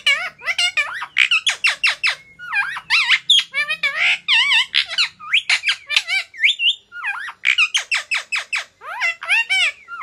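Indian ringneck parakeet giving a rapid run of short squeaky calls that sweep up and down in pitch, with a couple of brief pauses.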